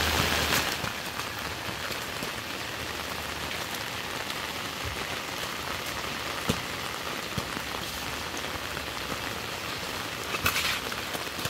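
Steady rain falling, with a few louder taps of drops, one about six and a half seconds in and a small cluster near the end.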